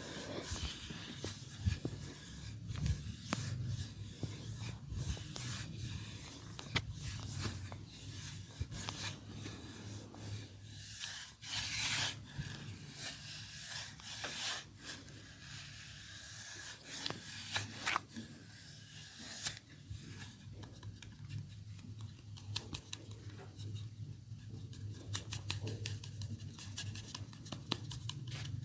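Hands massaging bare skin: rubbing and scraping strokes with many sharp clicks and snaps, over a steady low hum.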